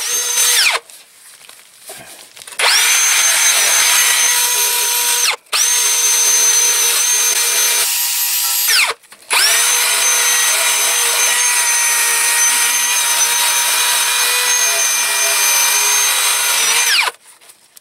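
Cordless drill spinning a worn 3M Scotch-Brite abrasive wheel against a rusty steel exhaust pipe, a steady high whine with the scrubbing of the pad, cleaning the pipe for a band clamp. The drill runs in bursts, spinning up each time: it stops about a second in, restarts, pauses briefly twice, and stops near the end.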